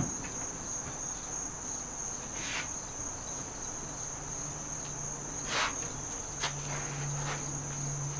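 Insects chirring in one steady high-pitched tone, with a few brief swishes of a microfiber towel wiped across a car's waxed paint.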